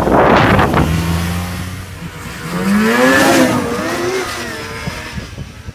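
Vintage Ski-Doo snowmobile's two-stroke engine running, then revving up as the sled pulls away, its pitch rising and then falling as it moves off. It opens with a loud rushing noise.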